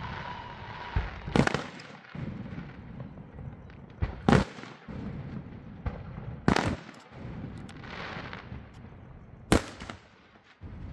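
Aerial firework shells bursting: four loud bangs a few seconds apart. Between them runs a continuous rumble and crackle of fireworks.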